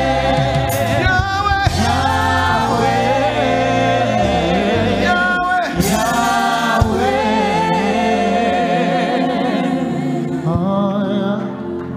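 Live gospel praise singing: a male lead vocalist on a microphone with a choir over instrumental backing. The low backing notes drop away about two-thirds of the way through, leaving mostly voices.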